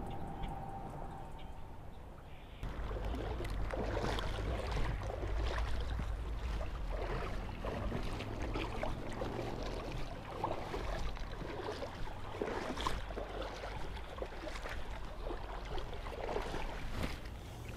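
River water lapping and gurgling, with a steady low wind rumble on the microphone. It becomes louder and fuller about two and a half seconds in.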